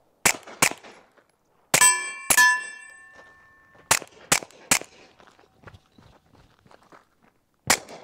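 SilencerCo Maxim 9 integrally suppressed 9mm pistol firing eight shots in quick groups of two and three. After the two shots about two seconds in, a steel target rings with a clear metallic ring for over a second. The shots are quiet, but not as quiet as a full-length suppressor.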